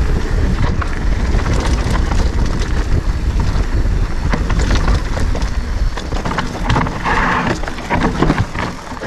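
Mountain bike ride on a rough dirt trail: wind rumbling over the camera microphone, with a steady run of sharp knocks and rattles from the bike over rocks and bumps. The rumble eases a little after about six seconds.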